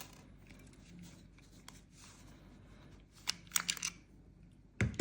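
Small plastic parts of an overlocker tension knob being handled and pulled apart: quiet at first, then a quick cluster of light clicks and rattles about three seconds in, and a louder knock just before the end.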